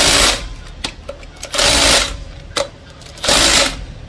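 Impact wrench hammering bolts tight on an engine in three short bursts, about one and a half seconds apart, with small clicks in between.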